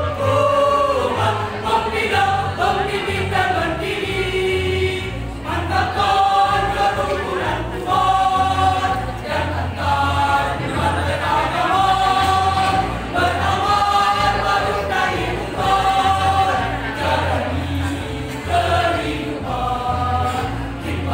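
Mixed choir of men's and women's voices singing a march song together, in held notes that change pitch about once a second.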